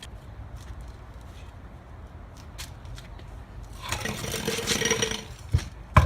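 Metal scraping and rattling as an LS1 transmission is worked free of the engine, followed by two heavy thumps near the end.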